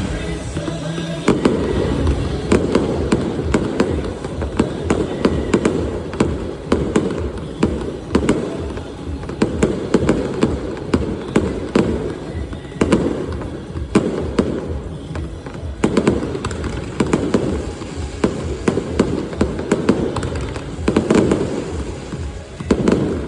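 A fireworks finale barrage: a dense run of sharp bangs, several a second, over continuous low noise.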